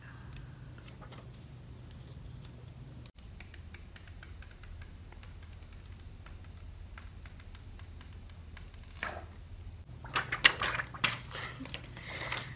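Thin clear protective plastic film being peeled off a new iPhone XS Max, with faint crackling and crinkling, louder near the end as the film is handled.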